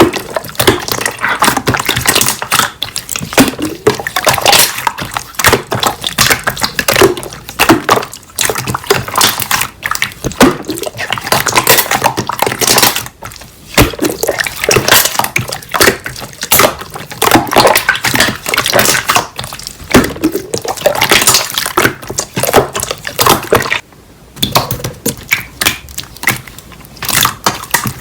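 Slime being squeezed and pressed by hand, making dense wet squelches and crackling clicks.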